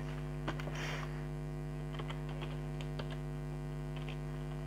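Keys tapped on a laptop keyboard, a scatter of light separate clicks, over a steady electrical hum.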